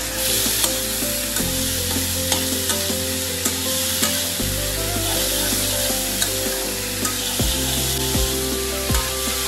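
Chopped carrot and onion sizzling in a hot steel kadhai while a metal spatula stirs them, with light scrapes and taps of the spatula on the pan.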